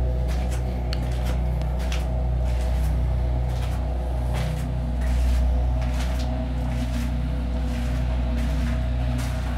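Footsteps and scuffs on concrete stairs and floor, a few irregular knocks a second, over a steady low droning hum.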